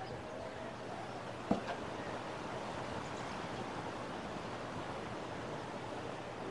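Steady wash of ocean surf and wind, with one sharp knock about a second and a half in, followed by a fainter one.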